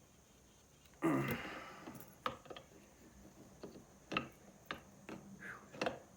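Hand tools clicking and tapping on a corroded air-compressor pump clamped in a vise. A louder grating sound comes about a second in, followed by a string of separate sharp clicks.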